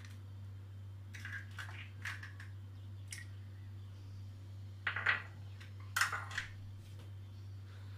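Short crackles and taps of broken eggshell halves being handled and set down in a small dish: a few light ones in the first three seconds, then two louder ones about five and six seconds in, over a steady low hum.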